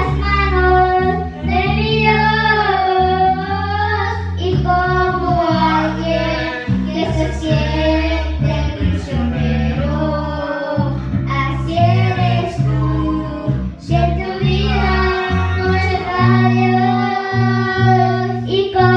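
A young girl singing a Spanish-language worship song into a microphone over a small PA, accompanied by electric guitar with a deep, steady bass line.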